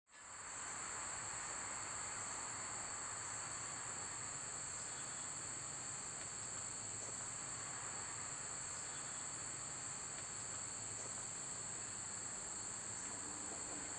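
Steady outdoor chorus of singing insects: a continuous high-pitched trill that holds unchanged, with a fainter second band below it.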